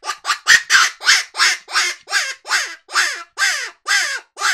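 Dog Soldier Legend 2J "low jack" predator hand call blown as a rapid series of low, gravelly, raspy cries, about three a second, each falling in pitch. It imitates a jackrabbit in distress, used to call in coyotes.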